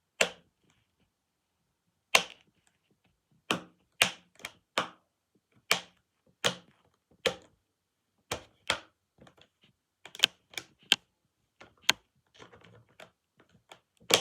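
Keys on a keyboard pressed one at a time, giving sharp separate clicks at uneven spacing, mostly half a second to a second apart. About ten seconds in there is a quicker run of four clicks, and near the end some softer small clicks.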